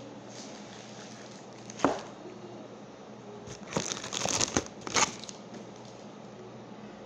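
Thin clear plastic bag being handled, crinkling in a flurry of bursts from about three and a half to five seconds in. A single sharp knock comes nearly two seconds in.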